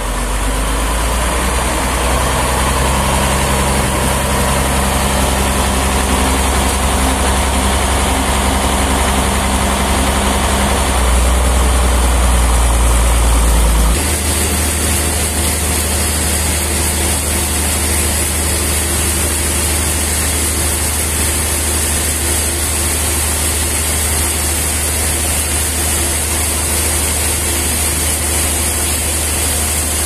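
Stationary engine that drives a band sawmill, running steadily with a low hum. Its sound changes abruptly about halfway through.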